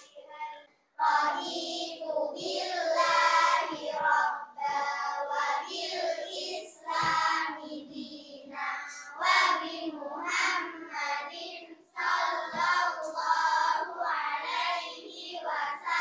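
A class of young schoolchildren reciting a prayer together in unison, chanting it in a sing-song rhythm. It starts about a second in and goes in phrases with short breaks between them.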